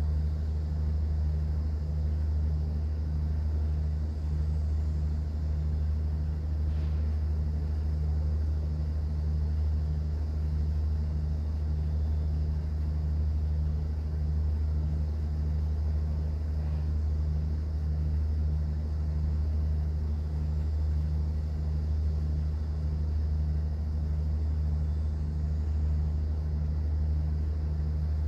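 Cruise boat's engine droning steadily, a deep constant hum with a faint even pulsing in it, heard from on board.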